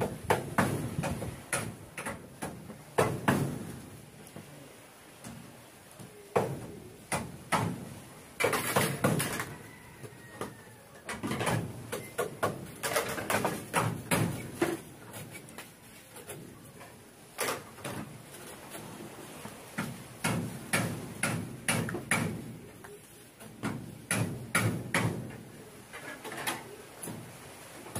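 Orange PVC pipe and a plastic bottle being handled and set down on a hard floor: irregular knocks, taps and clicks.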